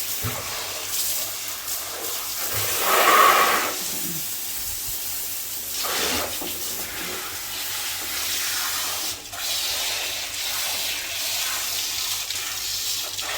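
Water spraying steadily in a continuous hiss, with a louder surge about three seconds in.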